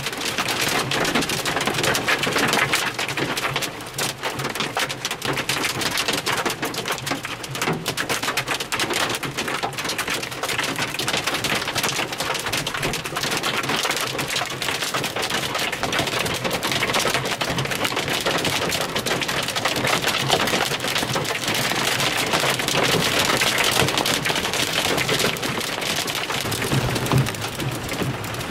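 Hail and heavy rain hitting the roof and windows of a vehicle, heard from inside the cab: a dense, unbroken clatter of impacts.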